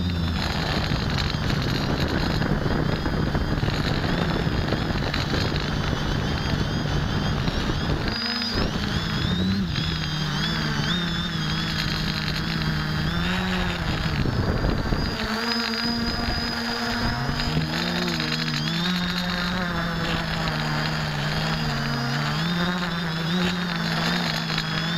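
X550AIOP quadcopter's electric motors and propellers buzzing, heard through a camera carried on the craft, with a thin high motor whine above and a rushing noise beneath. The pitch wavers up and down as the throttle changes, drops away briefly about eight seconds in and again about fifteen seconds in, then climbs back.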